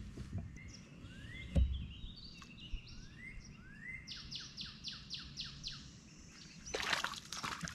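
Songbirds singing: a few rising whistled notes, then a run of about eight quick repeated notes. A dull thump about one and a half seconds in, and a brief rustling burst near the end.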